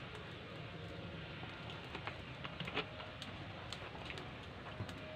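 Cooking oil pouring in a thin stream into a metal pan, filling it for deep-frying, with a few light ticks and clicks.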